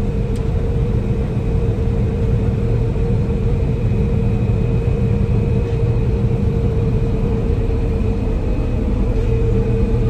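John Deere 9770 combine running steadily under harvest load, heard from inside the cab: a constant low rumble with a steady hum over it.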